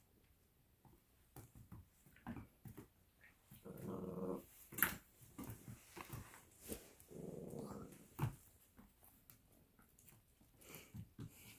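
Italian greyhound play-growling: two growls of about a second each, the first a little before the middle and the second about two-thirds through, with scattered short clicks and knocks in between.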